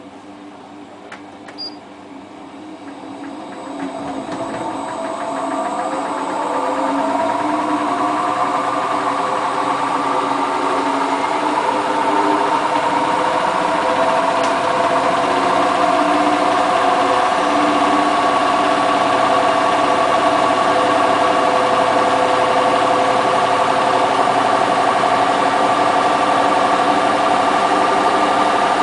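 Hotpoint Ultima WT960 washing machine's drum speeding up into its spin: a motor hum that rises in pitch and grows louder over the first ten seconds or so, then holds steady at full spin speed.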